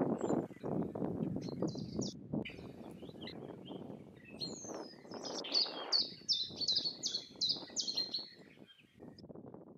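Footsteps crunching on stony ground and dry branches rustling as an armful of firewood is carried. A bird chirps now and then, then sings a quick run of repeated high notes from about five to eight and a half seconds in.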